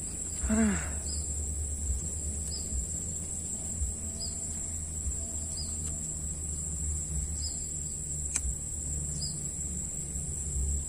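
Outdoor pond-side ambience: a steady high-pitched insect buzz, with a short chirp repeating every second or two over a low rumble. A brief falling, voice-like sound comes about half a second in.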